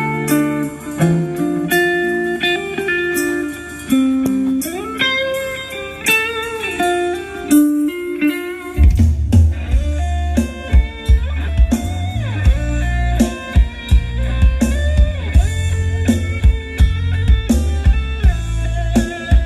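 Live band playing through a PA sound system, recorded on a camera microphone. A guitar plays a melodic lead line alone at first, then bass and drums come in with a steady beat about nine seconds in.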